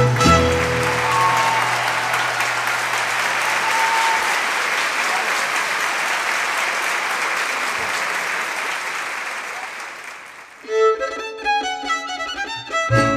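Audience applause after a mariachi number ends, slowly fading over about ten seconds. Near the end, the mariachi's violins and guitars start the next tune.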